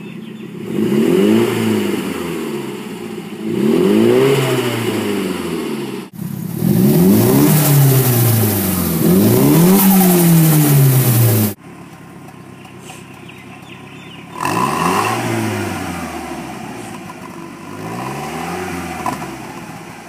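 A Nissan Silvia S15's turbocharged four-cylinder engine revved twice from idle through a 3-inch exhaust with the Varex muffler's valve open. It is then revved twice more, louder and brighter, through a 3-inch stainless Kakimoto exhaust. Finally it idles and gives two softer revs with the Varex valve closed. Each rev rises and falls over about a second and a half.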